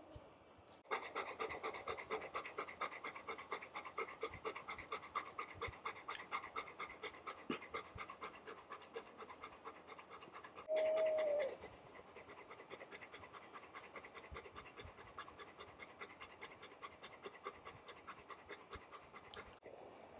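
Golden retriever panting fast and evenly, starting suddenly about a second in and stopping shortly before the end. About halfway through, a single short high cry, falling in pitch at its end, is the loudest sound.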